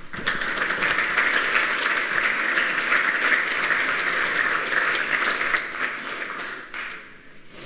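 Audience applauding, a dense steady clatter of many hands that dies away near the end.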